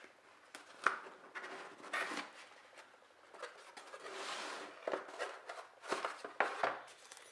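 Packaging being handled while a lock is unboxed: scattered taps and clicks, with a longer soft rustling slide about four seconds in.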